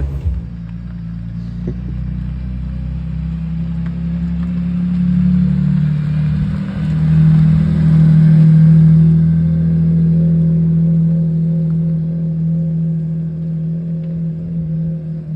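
A car engine running steadily under way, its drone holding a nearly constant pitch with a small shift about seven seconds in.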